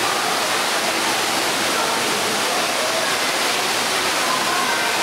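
Steady rushing hiss of water jets spraying from artificial rocks and splashing down, an even noise that does not let up.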